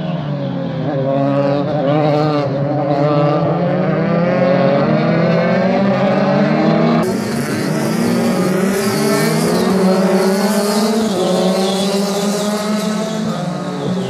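Euroformula Open single-seater race cars' engines running hard past the chicane. The engine note falls for the first couple of seconds, then climbs and holds high, and a steady hiss joins about halfway through.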